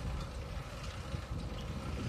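Bicycle ride heard from a handlebar- or frame-mounted camera: uneven low rumble of wind on the microphone and tyres on the road.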